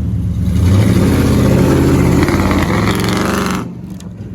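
Truck engine revving hard under heavy throttle, with a loud rushing noise over it, then dropping off sharply about three and a half seconds in.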